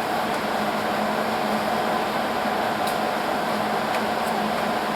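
A fan running steadily, an even whir with a constant low hum, with a couple of faint ticks.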